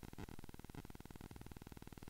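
Faint steady electrical buzz and hiss: recording background noise with no distinct event.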